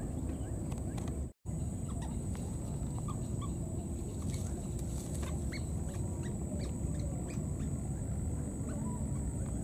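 Steady outdoor background rumble with many faint, short, high chirping calls scattered through it, and a steady thin high tone underneath. The sound drops out completely for an instant about one and a half seconds in.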